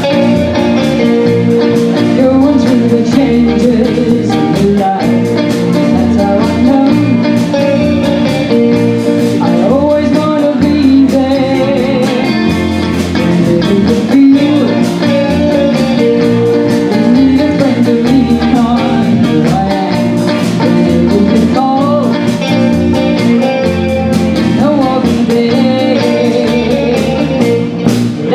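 Live band playing: two electric guitars, an electric bass guitar and a drum kit, with a melody line over a steady bass and chords.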